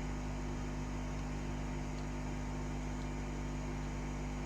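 Hot air gun blowing steadily, heating a watch screen to soften its adhesive, with a steady electrical hum underneath.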